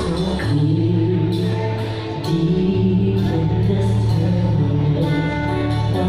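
Live singing with instrumental backing: a slow song over long held bass notes that change at about half a second and again near three seconds in.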